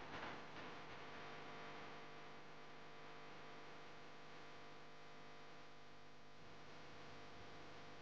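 Near silence: a faint steady hum, with a couple of soft clicks just after the start.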